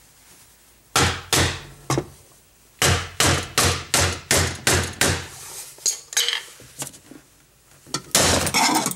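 Hammer tapping a plastic trim removal tool into a white plastic door rivet to break its head off and free the window regulator and motor assembly: two blows, then a quick even run of about eight, then a couple of lighter taps. A longer, rougher sound follows near the end.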